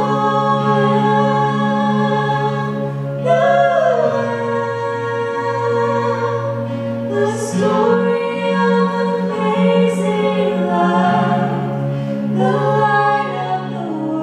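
Two women singing a slow song into microphones over sustained accompaniment, whose held low notes change every few seconds.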